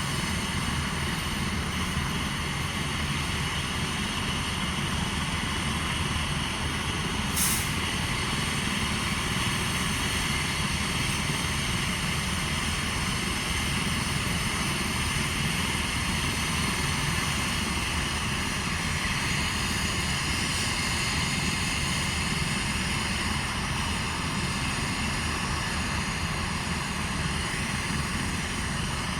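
Airbus H135 medical helicopter running steadily on the ground, a constant turbine whine over engine and rotor noise. A short hiss comes about seven seconds in.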